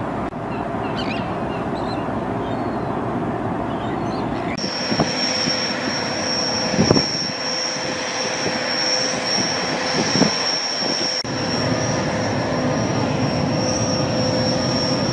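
Steady mechanical drone mixed with outdoor noise. About four and a half seconds in it changes abruptly and a steady high whine joins it, with a brief drop near eleven seconds.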